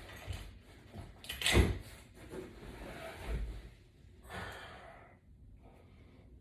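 A person working out on an exercise mat with resistance-band gear: knocks and shuffling from the body and equipment shifting, with breathing from the effort. One sharp knock about a second and a half in is the loudest sound.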